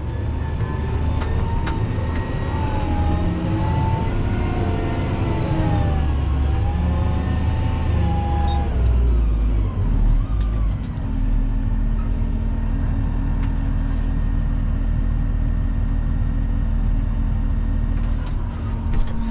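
Fendt tractor engine running, heard from the cab, its revs rising and falling for the first ten seconds or so, then holding a steady drone with a constant hum.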